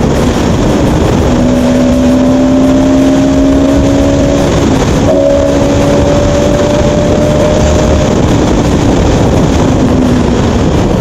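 A Bajaj Pulsar NS200 single-cylinder motorcycle engine running at road speed, with loud wind rush over the rider's microphone. A steady engine hum drifts slowly in pitch and breaks off briefly about five seconds in.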